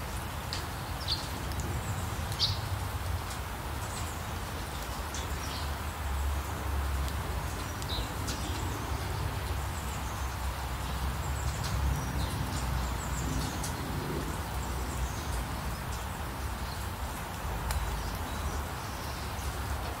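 Steady rain with birds chirping now and then in short high calls, most often in the first few seconds, over a steady low rumble.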